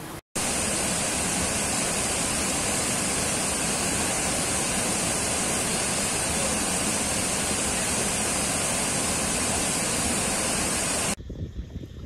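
White water rushing over river rapids, a loud, steady roar after a brief dropout at the start. It cuts off suddenly near the end, and a much quieter, gusty sound takes over.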